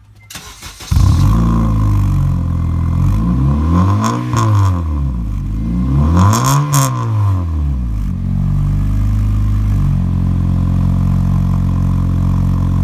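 The exhaust of an 8th-gen Honda Civic EX coupe's 1.8-litre four-cylinder, heard close at the tailpipe: the engine starts about a second in, is revved up and back down twice, then settles into a steady idle.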